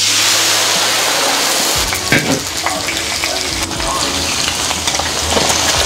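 Smoking-hot oil sizzling and crackling as it is ladled over dried chilies, Sichuan peppercorns and chopped scallions on a bowl of spicy fish stew. The sizzle starts suddenly and runs on with scattered pops.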